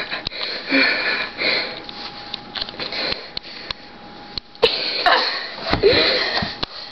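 A girl sniffing and breathing close to the microphone amid clicks of handling and rustling, with a short vocal sound about five seconds in.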